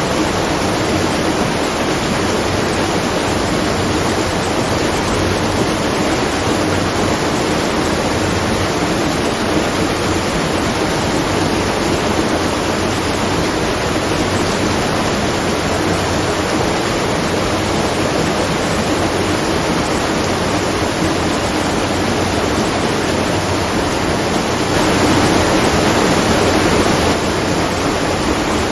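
Steady rush of water pouring at a watermill, briefly a little louder near the end.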